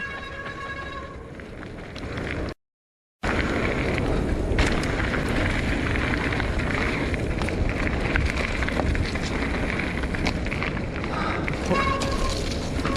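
Mountain bike descending a rough trail: loud wind and tyre noise with rapid rattles and knocks from the bike over rocks and roots. A steady whine with several overtones is heard in the first second and again near the end. The sound cuts out completely for about half a second shortly before 3 seconds in.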